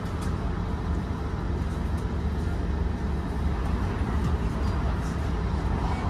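Scania K230UB OmniLink bus's five-cylinder diesel engine idling steadily with the bus standing still, heard from inside the passenger cabin.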